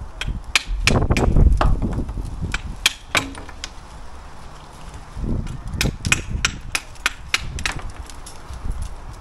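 Steel brick trowel knocking and clacking against a mortar board as mortar is worked: a run of sharp, irregular clacks with a heavier low knock about a second in.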